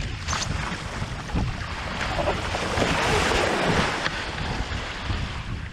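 Wind buffeting the microphone over a steady rush of water past an iFLY15 foiling catamaran's hulls. A loud burst of splashing spray swells between about two and four seconds in, as the sailor slips off and falls into the water.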